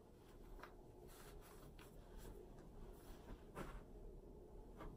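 Near silence with a few faint, short rustles of clothing fabric as a top and cardigan are handled and adjusted.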